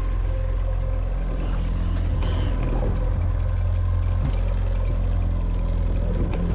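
Boat's outboard motor running steadily, a low rumble with a faint steady hum. About a second and a half in there is a brief high-pitched hiss lasting about a second.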